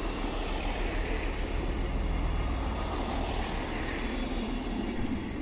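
Northern Class 158 diesel multiple unit running past close by: diesel engine and wheels on the rails, a steady rumble.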